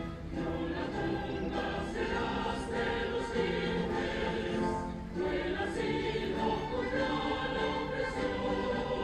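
Choral music: a choir singing held notes in harmony, with a brief dip in loudness about five seconds in.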